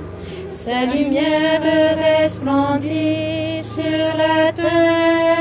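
A woman singing a slow hymn in French, unaccompanied and solo, holding long notes with short breaks between phrases.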